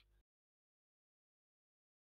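Near silence: the sound track is dead quiet, with only the last trailing bit of a spoken word at the very start.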